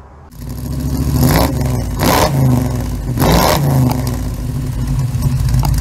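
A car engine revving over a low rumble, with a few sharp surges of the throttle about one and a half, two and three and a half seconds in.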